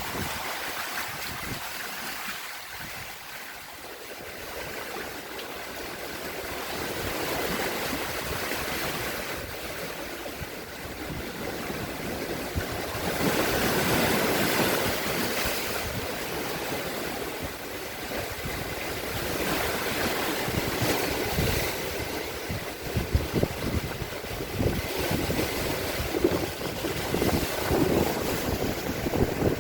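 Strong wind blowing in gusts, buffeting the microphone with ragged low thumps in the second half, over the rush of sea waves.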